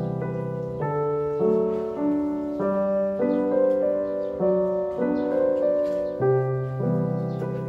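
Background piano music, a melody played over sustained low chords.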